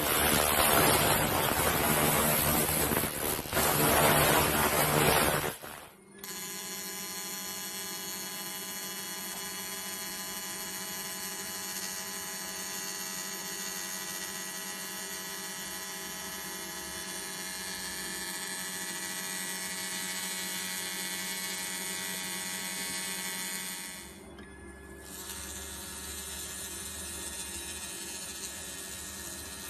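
A loud rushing noise for the first six seconds, cut off sharply. Then the steady electric buzz of a laser rust-cleaning machine at work, made of many fixed tones, which dips briefly near the end.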